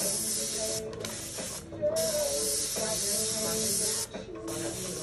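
Airbrush spraying paint onto a fabric jacket: a hiss of air that stops and restarts several times as the trigger is released and pressed again, with a longer pause near the end.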